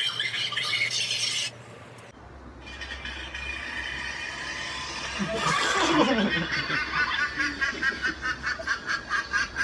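Audio of a funny clip playing through a phone's speaker: a pitched sound that swoops down in pitch around the middle, followed by a fast rhythmic pulsing of about five pulses a second.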